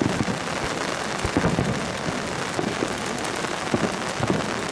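Heavy downpour drumming loudly on an umbrella held over the microphone, with several dull low thumps.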